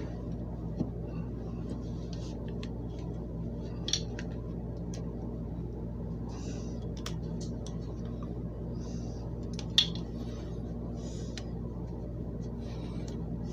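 A paper towel rustling as it is pulled over a small glass jar and a rubber band stretched around it, with two sharp snaps about four and ten seconds in, the second the louder. A steady low hum runs underneath.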